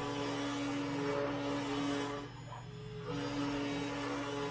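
Genmitsu PROVerXL 4030 V2 CNC router V-carving plywood: the spindle runs with a steady hum while the stepper motors whine, the whine changing pitch as the axes move and dropping back briefly a little past halfway through.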